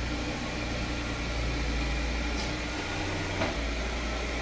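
Chevrolet Corsa's engine running at idle as the car creeps slowly forward, a steady low hum, with one short click about three and a half seconds in.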